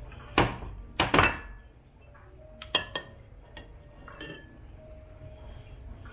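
A heavy black rice bowl and a white ceramic bowl knocking and clinking together as rice is tipped from one into the other. There are three sharp knocks in the first second and a half, then a few lighter taps.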